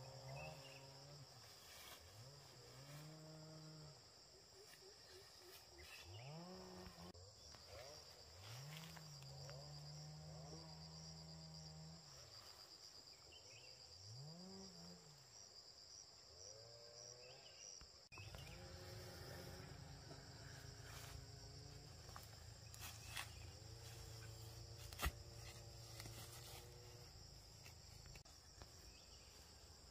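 Steady, faint, high-pitched insect chirring. Under it are faint low tones that rise and fall, each lasting a second or two, and a single sharp knock about 25 seconds in.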